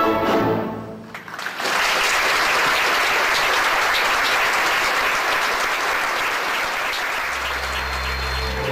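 Orchestral ballet music fades out about a second in, and a theatre audience then applauds. A low steady note of new music comes in near the end.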